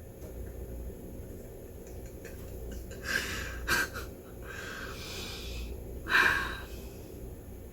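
A woman laughing hard and nearly silently, with wheezing, snorting breaths in a few bursts; the loudest comes about six seconds in.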